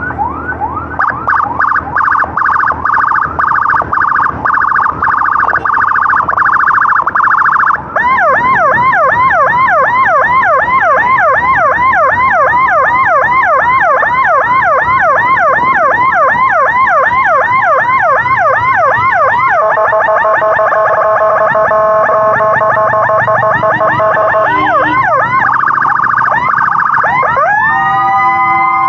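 Electronic emergency-vehicle siren sounding loudly and cycling through its tones. It starts with a fast warble, switches to rapid rising yelps about a quarter of the way in, changes to an alternating two-tone pattern about two-thirds through, and ends with slow rising wails.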